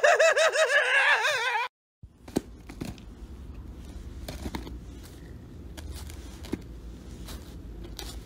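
A dog gives a loud, wavering howl that rises in pitch and then shakes up and down for about two seconds before cutting off. After a brief silence come faint scattered taps and rustles over a low hum as a cat paws at food in a foam takeout tray.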